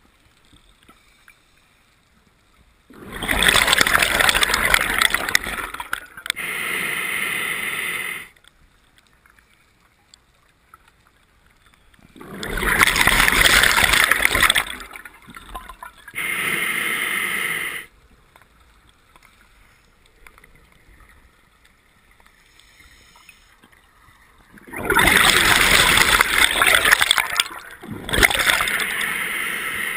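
Scuba diver breathing through a regulator underwater: three breaths, each a loud hiss of air drawn in followed by a slightly softer burble of exhaled bubbles, with quiet pauses of several seconds between.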